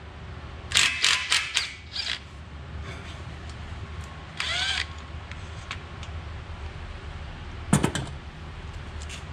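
Socket wrench and sockets working on a bolt of a John Deere 410G's thermostat housing bracket. A quick run of sharp metallic clicks comes about a second in, then a short squeak near the middle and one sharp clank near the end.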